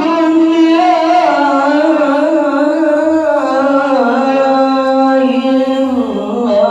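A male qari chanting Quran recitation (tilawah) into a microphone: one voice holding long, ornamented notes without pause, the melody slowly stepping down in pitch.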